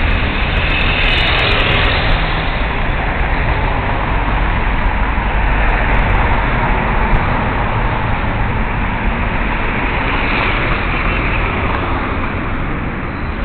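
Steady city street traffic: cars, motorcycles and buses running past, a continuous rumble with no single vehicle standing out.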